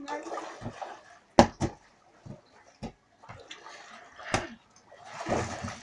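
Water sloshing and splashing in a small above-ground pool as people wade and move, with three sharp slaps of a ball being hit: two close together about one and a half seconds in, one more past the middle.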